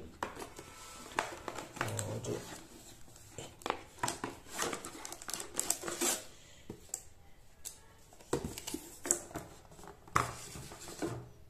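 Plastic wrapping bag crinkling and a cardboard packaging box rustling and knocking as a boxed device is handled and lifted out: a run of irregular crackles and light taps.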